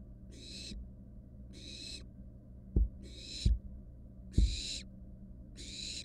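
Barn owl nestlings making repeated rasping, hiss-like begging calls, about one every second. There are three low thumps around the middle, louder than the calls, over a steady low electrical hum.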